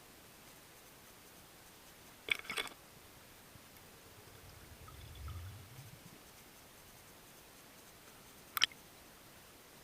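Quiet underwater ambience with a faint steady hiss, broken by a short cluster of sharp clicks about two and a half seconds in, a soft low rumble around five seconds, and one more sharp click near the end.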